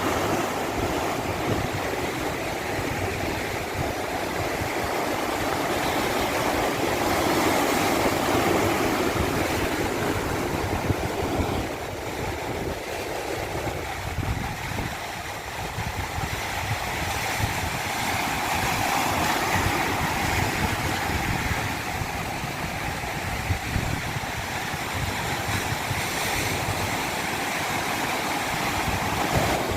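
Stream water rushing over a cascade: a steady, full rush that swells and eases slowly.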